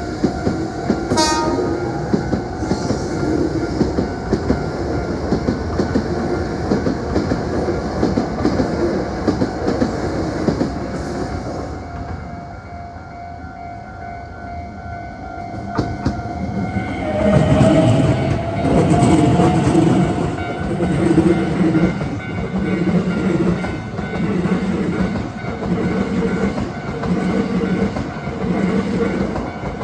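Hankyu electric commuter trains passing at close range: the first, a 9300 series limited express, rumbles steadily by, with a short horn blast about a second in. It fades about halfway through, then a second train comes through with a rising motor whine and evenly repeated wheel clatter over the rail joints.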